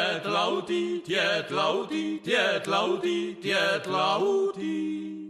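A voice singing a Czech folk song in short phrases over a steady low drone; the drone stops near the end.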